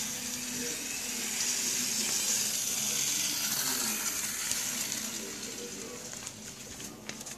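A steady hiss that swells over the first few seconds and fades after about five, with faint voices underneath and a few light clicks near the end.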